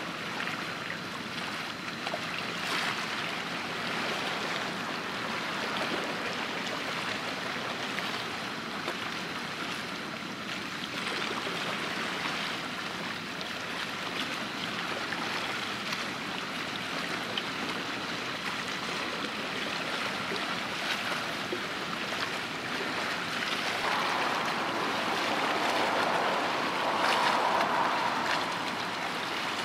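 Sea water lapping and washing steadily, growing somewhat louder for a few seconds near the end.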